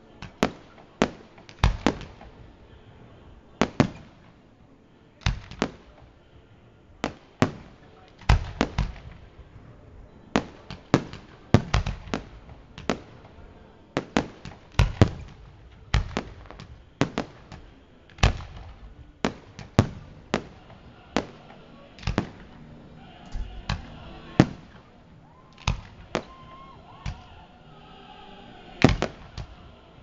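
Fireworks display: aerial shells bursting one after another with sharp bangs, irregularly spaced at about one to two a second, some coming in quick pairs.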